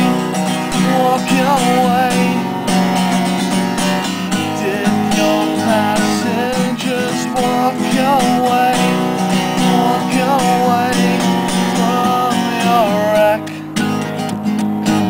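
Acoustic guitar strummed steadily, with a man's voice singing a wavering melody over it that stops about two seconds before the end, leaving the guitar alone.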